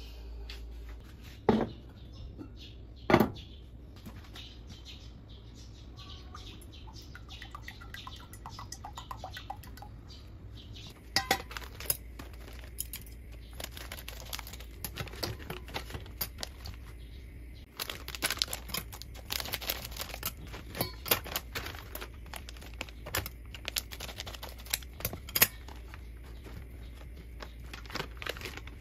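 A heavy cast-iron pot knocking twice as it is handled, about a second and a half and three seconds in. Then a long stretch of plastic packaging crinkling and tearing, with many small clicks, as frozen spring rolls are unpacked into a steel bowl.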